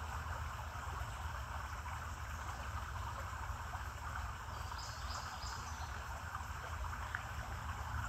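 Steady rush of creek water trickling over rocks, with a low rumble beneath and a few brief high chirps about five seconds in.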